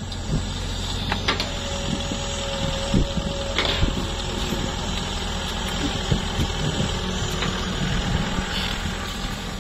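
Diesel engine of a long-reach excavator running steadily, with a steady whine for a few seconds after about a second in and occasional light knocks.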